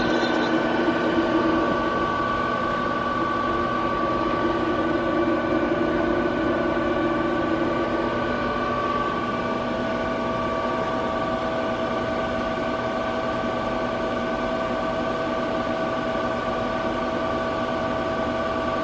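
Star SB-20R Type G Swiss-type CNC lathe running: a steady machine hum with several steady whining tones. About eight seconds in, one lower tone drops away, and a second later a new, higher one comes in.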